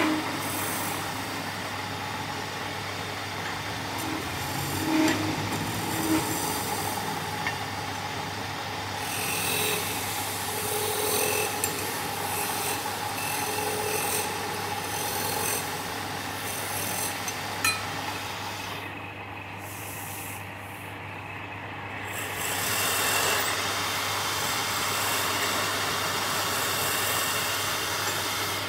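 Wood lathe running with a steady low hum while a turning tool scrapes and cuts the spinning wood. The rough cutting noise drops away for a few seconds about two-thirds of the way through, then resumes.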